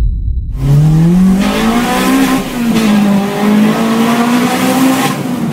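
A car engine accelerating hard: after a low rumble, its note rises steeply over about a second and a half, then holds high with small rises and dips.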